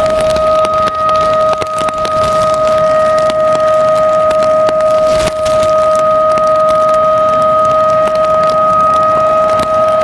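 Emergency mass-warning siren at a dam, sounding one loud, steady tone with no rise or fall: a flood alert for rising river water.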